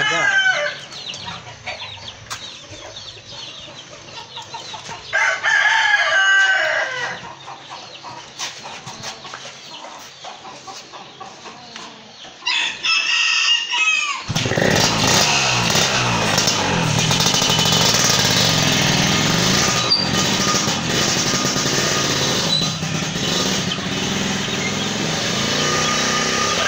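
A rooster crows about three times. About halfway through, a Yamaha RX King's two-stroke single-cylinder engine starts up suddenly and runs loud and steady, just after its clutch has been adjusted to stop it stalling when the clutch is let out.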